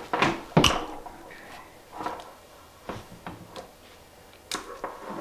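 Hand lug crimper being squeezed to crimp a cable lug onto 4-gauge battery cable: a series of sharp metallic clicks and crunches, the loudest about half a second in.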